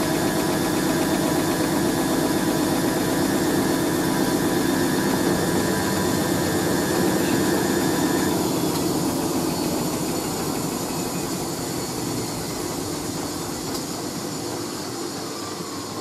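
Hoover A3060 Electronic 1100 washing machine running mid-programme: a steady motor and drum whir. A thin high whine cuts out about halfway through, and the sound slowly gets quieter over the second half.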